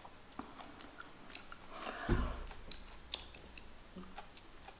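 Faint scattered clicks and taps of a smartphone being handled and tapped, with a soft thump and a brief rustle about two seconds in.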